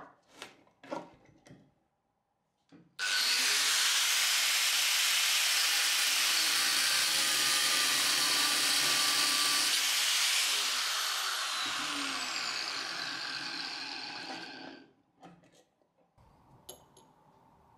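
Clicks of a screw being set in a steel vise, then about three seconds in a Makita angle grinder with a thin cutting disc starts and runs for about twelve seconds, cutting the head off a hardened steel screw. Its sound fades over the last few seconds and stops, followed by a few clicks as the vise is loosened.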